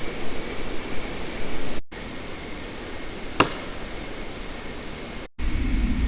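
Steady hiss of a heavily amplified night recording, with a faint steady high tone. The sound cuts out for a moment twice, and there is one sharp click about three and a half seconds in.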